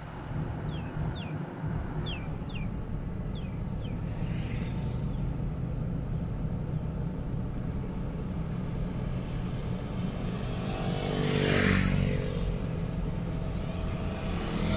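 Steady engine and tyre rumble of a car driving slowly, heard from inside the cabin. A few short high chirps come in the first few seconds. About eleven seconds in, a passing vehicle grows louder for a second or so.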